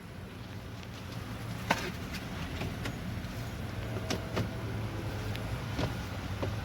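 An engine idling steadily, with a handful of light clicks and taps scattered over it.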